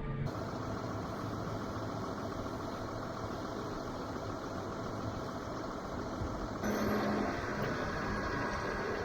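A vehicle engine running steadily, with a short rise in level and a brief low hum about two-thirds of the way in.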